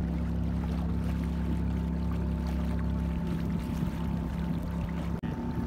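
Small boat engine running steadily under way, with water noise around the hull. Its low rumble eases about three seconds in, and the sound briefly cuts out near the end.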